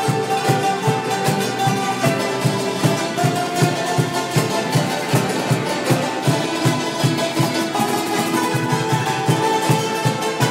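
Thai khim hammered dulcimers, several played together, ringing out a traditional melody with an acoustic guitar keeping a steady beat.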